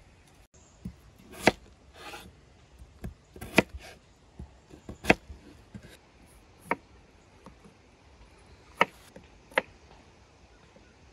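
Kitchen knife slicing raw peeled potatoes on a wooden cutting board: the blade knocks sharply on the board about six times at uneven intervals, with fainter taps between.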